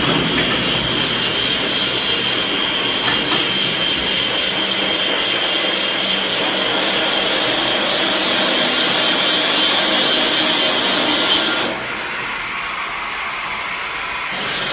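Angle grinder grinding down the root pass of a weld: a steady high-pitched whine over a grinding rasp. About 12 s in the whine drops away and the level falls, then it picks up again near the end.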